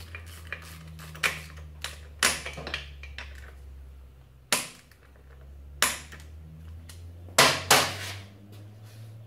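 Hand tools clinking and knocking as bolts are fitted to a motorcycle's plastic chain guard: a scatter of sharp metallic taps, the loudest two close together near the end, over a steady low hum.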